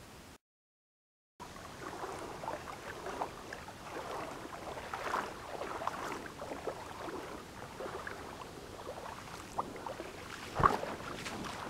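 Legs wading through a shallow, rocky creek: water sloshing and splashing in short, irregular bursts, with one louder splash or knock near the end. A second of dead silence at an edit cut comes just before.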